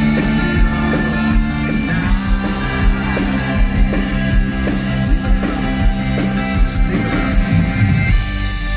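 Live rock band playing an instrumental passage: electric guitars over a steady drum beat with cymbals.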